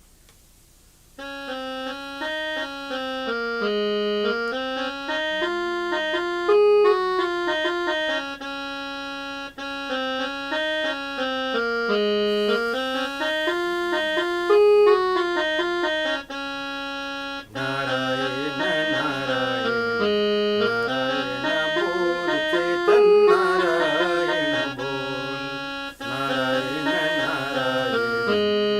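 Instrumental introduction to a devotional bhajan. A keyboard melody of held notes starts about a second in, and a fuller accompaniment with lower notes joins about halfway through.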